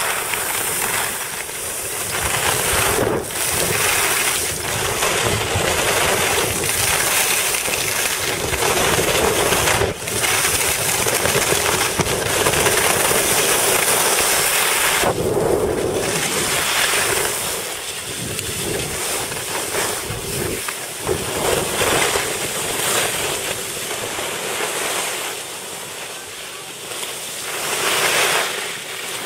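Wind rushing over the microphone of a camera carried by a moving skier, mixed with the scrape of skis on packed snow. The noise swells and eases.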